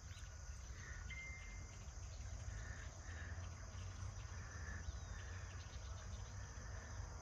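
Crickets and other insects chirping steadily in soft repeating pulses over a constant low rumble. A brief thin whistled note sounds about a second in.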